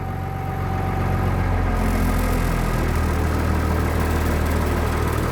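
Diesel engine of a 1996 Blue Bird bus idling steadily just after a cold start, having started after its glow plugs warmed. Its note shifts slightly about two to three seconds in as the idle settles.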